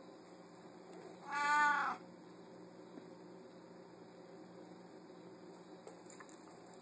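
A domestic cat meows once, about a second in: one short call that rises slightly and then falls in pitch.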